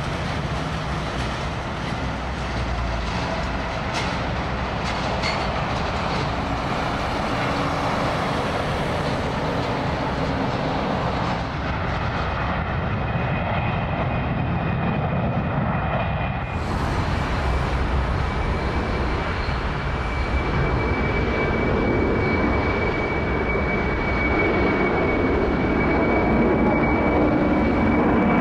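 Jet airliner engines running: a steady roar with a high engine whine, growing louder near the end as a four-engine Boeing 747 passes overhead.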